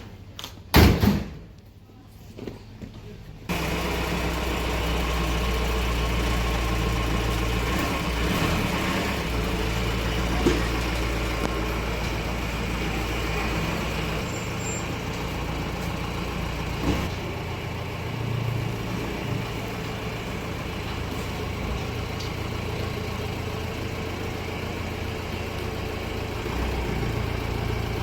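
A motor vehicle's engine running steadily, starting about three and a half seconds in. It is preceded by a loud knock about a second in.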